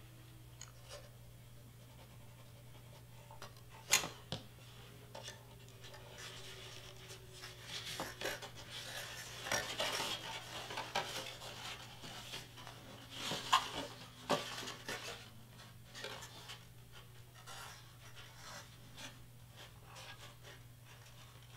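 Pink cardstock being folded and pressed by hand: paper rustling and scraping on a cutting mat, with a few sharp taps, the loudest about four seconds in. A faint steady low hum runs underneath.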